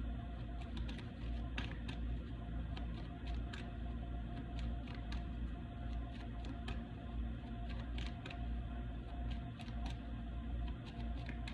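Scattered light clicks and taps at an uneven pace, over a steady low hum with a faint steady tone.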